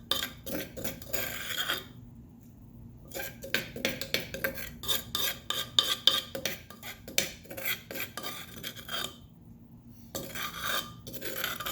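A spoon scraping and clinking against a mortar as a coarse ground paste is scooped out, in bursts of quick scrapes with short pauses between them.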